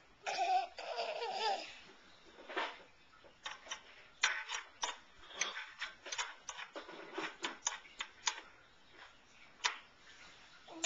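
A toddler babbles briefly, then scattered light clicks and taps of small hardware and wooden parts being handled, irregular and a few per second at most.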